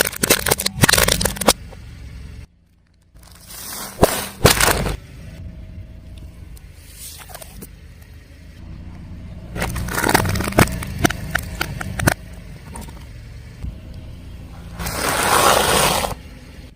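Crunchy objects being crushed under a car tyre, cracking and snapping in several bursts, over the low sound of the car's engine. A brief drop-out about two and a half seconds in.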